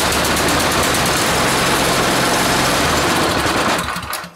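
Small single-cylinder snowblower engine running with no muffler fitted, loud and steady, then dying away about four seconds in. It will not keep running even after its carburettor was cleaned.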